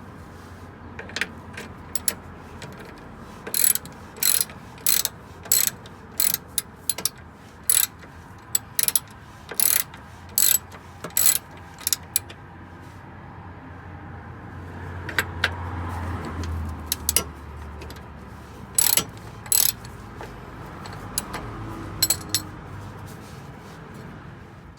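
Stabilizer bar bushings of a Honda Vamos's suspension creaking and clicking again and again, about one or two sharp creaks a second with a pause partway through, over a steady low hum. This is the noise of a stabilizer bushing.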